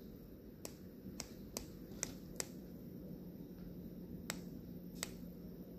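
Faint sharp clicks, about seven at uneven intervals, from a used BMW intake VANOS solenoid being twisted by hand: a pressed-in section that should not move is shifting. The owner thinks this looseness may have caused the bank 1 timing-retarded code P052B.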